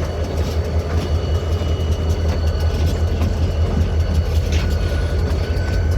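Steady low rumble of a moving vehicle, with faint scattered clicks.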